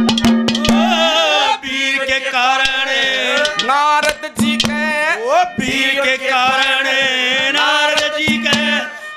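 Live Haryanvi ragni folk music: a wavering melody with heavy vibrato over a steady held note that drops in and out, driven by rapid hand-drum strokes.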